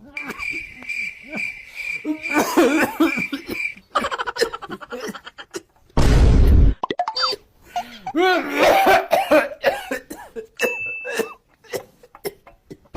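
A person coughing repeatedly, among other short vocal noises. A pulsing beep sounds for the first few seconds, a loud sudden burst comes about six seconds in, and a brief tone sounds near the end.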